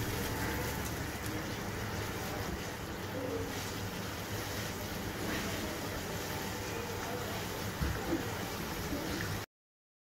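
Bubbling sugar syrup in a stove-top pan as fried gram-flour boondi is tipped in and stirred with a silicone spatula, over a steady low hum and hiss, with two short knocks near the end. The sound cuts off abruptly a little before the end.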